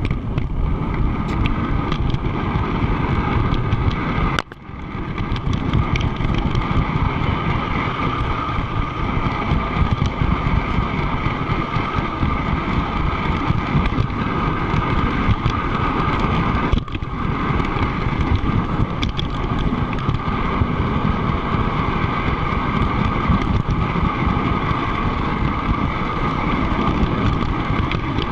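Steady rumble and whine of an O scale model train rolling along three-rail track, picked up close from a camera riding on the train. The sound dips sharply for a moment twice.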